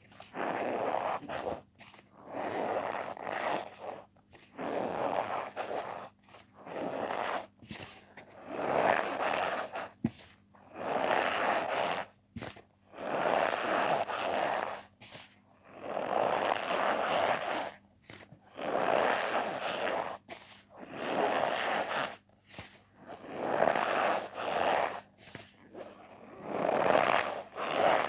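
Powdered cornstarch being squeezed and pressed, giving squeaky, crunching squishes in repeated strokes, one about every second and a half.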